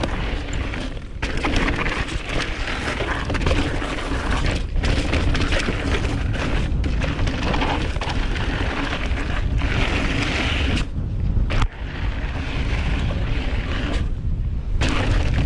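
Wind rushing over the microphone and tyre noise as a Merida Big 9 hardtail mountain bike is ridden fast on a dirt trail. The rushing eases briefly twice near the end.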